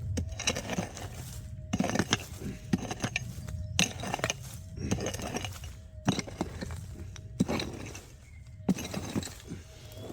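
Hand digging tool striking hard, stony ground, about one blow a second, with stones and grit clinking at each strike: digging out a metal-detector target.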